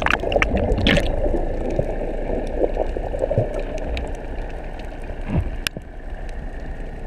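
Muffled underwater sound from a submerged camera: a steady low rush of seawater with gurgling and bubbling, and a few sharp clicks.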